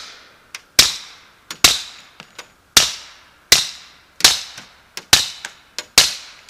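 Rapid suppressed shots from a 10mm Rock Island Armory 1911 pistol fitted with a SilencerCo Hybrid 46 suppressor, firing 200-grain full metal jacket. There are seven shots about a second apart, each a sharp crack with a short echoing tail, and fainter clicks fall between the shots.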